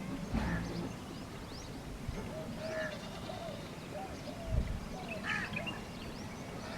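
Several birds calling together: quick high chirps throughout, harsher calls about half a second, three and five seconds in, and a wavering lower call in the middle. A low bump about four and a half seconds in.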